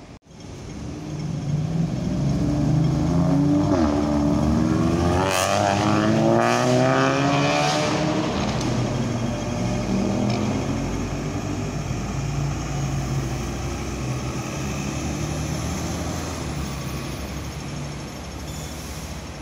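Double-decker bus driving past, its engine note climbing as it accelerates; it is loudest a few seconds in, then settles into a steady engine drone.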